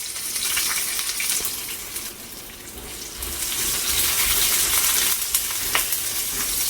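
Diced onion sizzling as it fries in hot oil in a pan, with a few light knocks. The sizzle dips briefly and grows louder again from about three seconds in.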